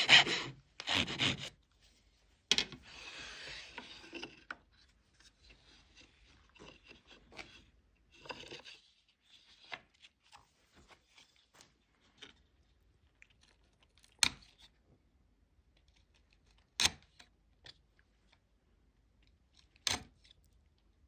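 The last few strokes of a hand saw cutting wood in a saw guide, then a chisel paring and scraping out the notch in short, faint scrapes. Three sharp knocks come in the second half, a few seconds apart.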